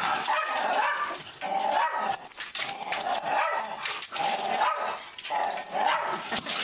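Small white terrier yipping and whining in a rapid, unbroken string of high calls as it jumps up again and again.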